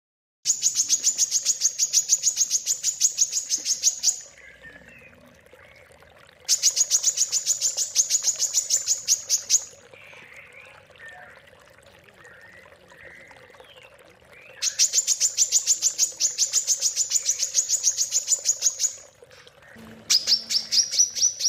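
A songbird singing fast trills of one sharp high note repeated about eight times a second, in four bursts of three to four seconds with faint chirps between; the last burst starts a little lower and rises. This is the rapid 'tembakan' burst that Indonesian songbird contest judges look for.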